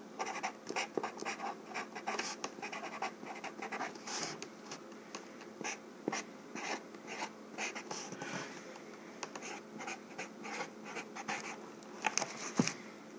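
Writing by hand on the side of a cardboard box: a quick run of short scratching strokes as letters are written out, with a few sharper taps near the end.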